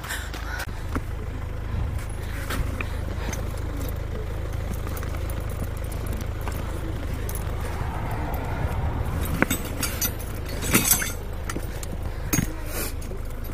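Rattling and clinking of metal clips and rope being pulled out of a bag, growing busier in the last few seconds, over a steady low rumble.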